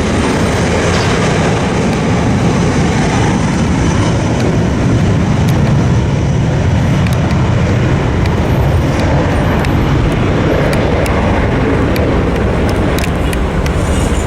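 Alaska Airlines jet airliner taking off, its engines at takeoff power: a loud, steady, deep noise that swells a little through the middle.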